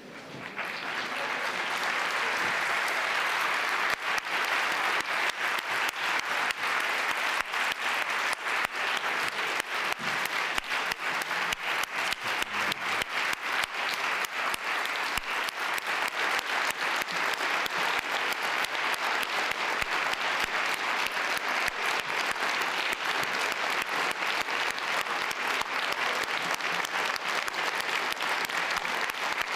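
Large audience applauding, building up over the first couple of seconds and then holding steady.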